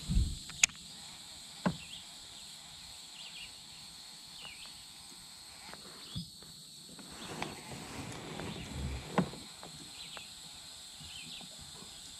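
Steady high insect drone over a quiet creek, broken by a low knock at the start and a few sharp clicks from a baitcasting rod and reel handled in a plastic kayak. The loudest is a single sharp click about half a second in.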